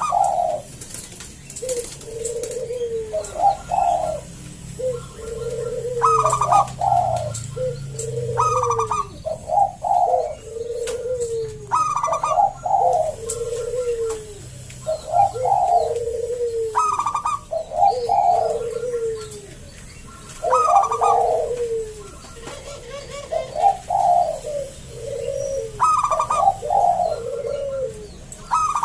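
A local zebra dove (perkutut) cooing over and over, about one phrase every two seconds. Each phrase is a quick run of rolling notes stepping down in pitch, in the deep, full voice prized in a 'suara besar' perkutut.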